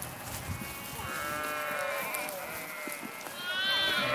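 A large flock of sheep bleating, many calls overlapping one another, getting louder about three and a half seconds in.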